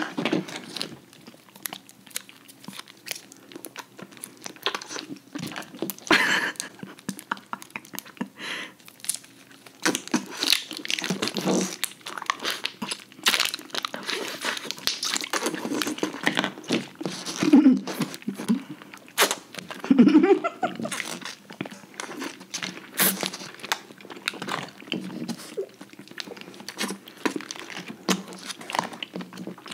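Close-miked eating of jelly: jelly sucked and squeezed out of plastic jelly straws and cups, with chewing and plastic wrappers crinkling, a steady scatter of short clicks and crackles.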